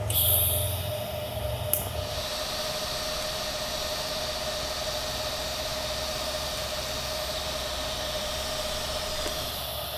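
TIG welding arc on chromoly tubing: a steady hiss with a faint steady whine running under it. It opens with a brief sharper hiss and has one small click about two seconds in.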